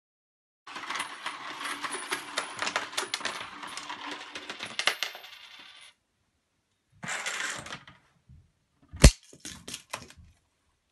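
Coins poured into a funnel, a continuous jingling clatter of metal coins lasting about five seconds. After a pause comes a short rustle, then one loud sharp crack followed by a few lighter clicks.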